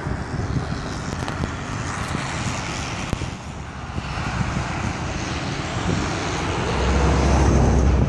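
Road traffic running past: a steady hiss of tyres and engines, with a deeper rumble swelling near the end as a vehicle goes by.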